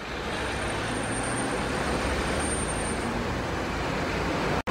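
Steady rushing rumble of vehicle noise with a low hum and a faint high whine in the first few seconds, cutting off abruptly at the end.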